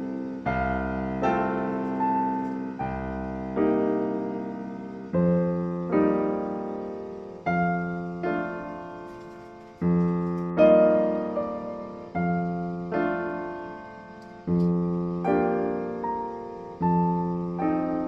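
Slow, gentle background piano music, notes and chords struck about every second or so, each left to ring and fade.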